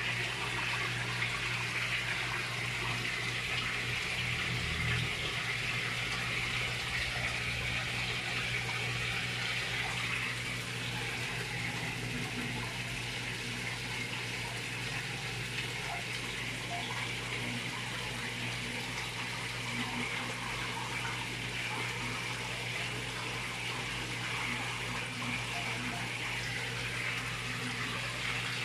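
Pond water running and splashing steadily, as from a filter return pouring into the pond, over a low steady hum.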